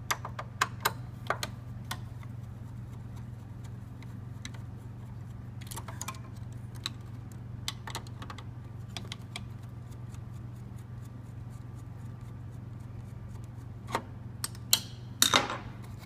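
A Phillips screwdriver backing screws out of a steel hard-drive cage bracket inside a server chassis, with scattered small metallic clicks and ticks in clusters. A few louder clicks come near the end, over a steady low hum.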